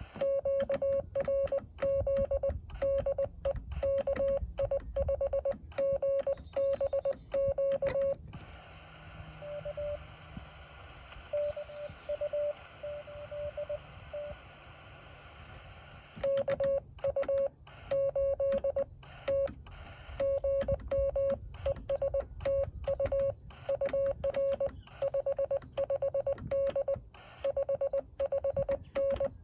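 Morse code tones from a Yaesu FT-817 ham radio transceiver: a single mid-pitched tone keyed in rapid dots and dashes over receiver hiss. It is loud for the first eight seconds, fainter and sparser from about ten to fifteen seconds in, then loud again.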